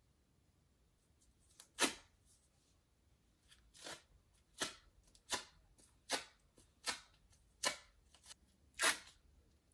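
Hand rubbing a wax strip firmly against underarm skin: short swishing strokes, one at about two seconds and then a steady run from about four seconds on, roughly one every three-quarters of a second.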